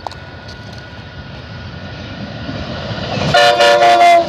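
Amtrak passenger train approaching with a rising rumble. Near the end its air horn sounds a loud chord of several notes for about a second and cuts off sharply.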